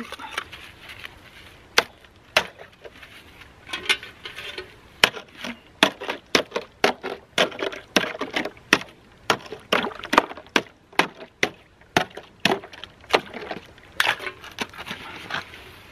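Ice on a frozen loch being struck again and again to break through it for water: sharp cracking blows, a few spaced ones at first, then a steady run of about two a second with a short pause before the last few.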